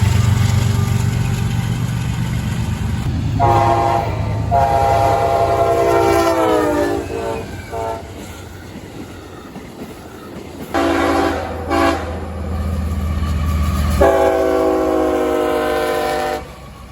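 CSX freight diesel locomotive sounding its horn in a series of blasts over the low rumble of its engine. There is a long blast, a longer one whose pitch sags near its end, then two short ones close together, and a final long blast that cuts off near the end.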